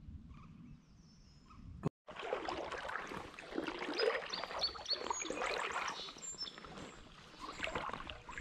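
Water splashing and lapping close to the microphone, a dense crackle of small splashes, with a few short high bird chirps over it. It begins about two seconds in, after a low rumble and a brief moment of total silence.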